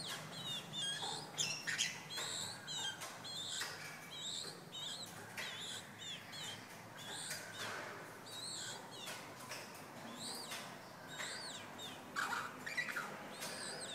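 Red-whiskered bulbul giving a run of quick chirps and short, bending whistled notes, with scattered soft clicks between them. This is a male calling during its wing-spreading courtship dance.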